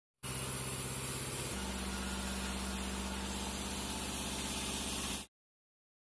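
Sawmill bandsaw machinery running steadily: an engine-like hum with a hiss above it. Its pitch shifts about one and a half seconds in, and the sound cuts off suddenly near the end.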